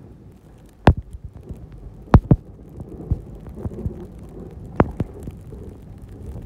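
Snowplow truck with its blade down, pushing snow over a low rumble, broken by sharp thumps and knocks. The loudest come about a second in, as a close pair just after two seconds, and near five seconds.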